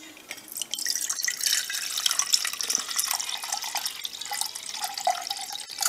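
Water pouring from a Nalgene bottle into an Optimus Terra Weekend HE cook pot, starting about a second in and splashing steadily onto the pot's bottom.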